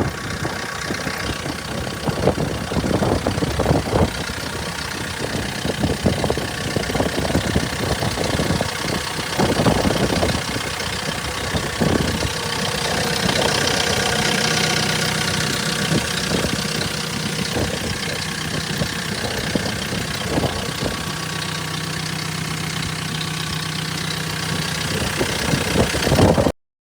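Volvo L30G compact wheel loader's diesel engine running at idle, steady throughout, cutting off suddenly near the end.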